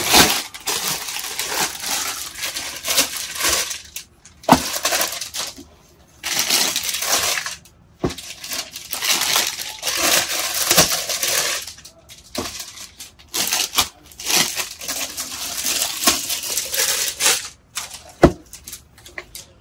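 Repeated bursts of rustling and crinkling as jeans and their packing are handled, broken by short pauses, with a few sharp clicks.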